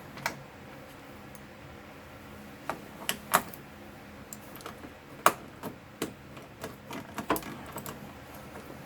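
Irregular sharp clicks and clacks of a ratchet wrench with a 5/16 socket being worked on cover screws, the loudest knocks about three and five seconds in.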